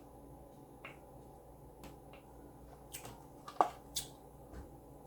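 Close-miked eating sounds from someone eating tacos: a few sharp mouth clicks and smacks of chewing, the loudest about three and a half seconds in.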